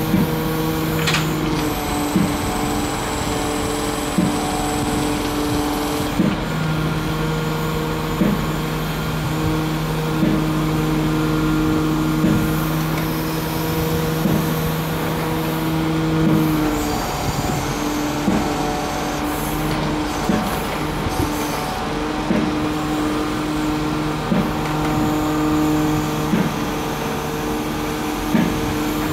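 Engine and hydraulic pump of a pontoon-mounted hydraulic grab excavator running with a steady hum that shifts in pitch a few times as the clamshell grab is worked. Short sharp knocks come about every two seconds.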